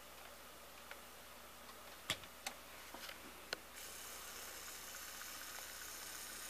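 Elac Miracord 50 H II turntable: a few faint clicks in the first half, then from a little past halfway a steady hiss of record surface noise as the stylus rides the record's lead-in groove.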